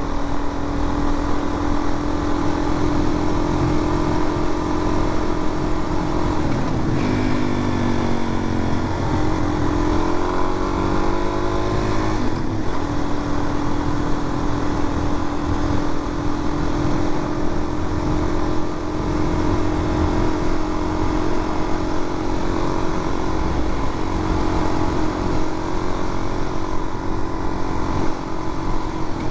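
Suzuki DR-Z400's single-cylinder four-stroke engine running at a steady cruise with wind rush over the helmet. About seven seconds in the revs drop, then climb again for a few seconds, with a short break near twelve seconds, before the engine settles back to a steady cruise.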